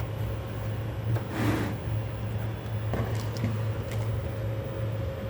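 Packaging being handled and opened during an unboxing: a brief rustle about a second and a half in and a few light knocks later, over a steady low hum.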